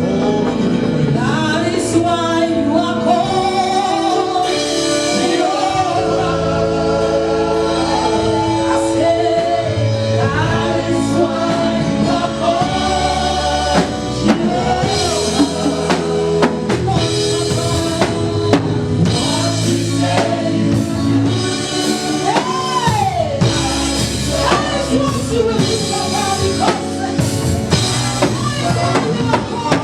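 Live gospel praise music: singing with a band of drum kit, bass and keyboard-like chords.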